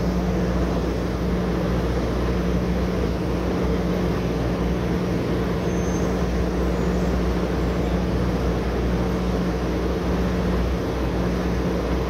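Oil drilling rig's machinery running steadily: a constant drone of engines with a steady hum.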